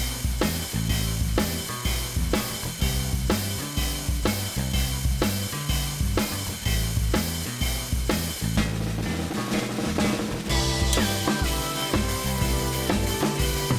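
Background music with a steady drum-kit beat and bass line; about eight and a half seconds in, a higher melody comes in over it.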